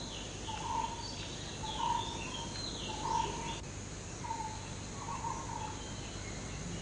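A bird calling, a short note repeated about once a second, with fainter higher chirps from other birds over a steady low hum.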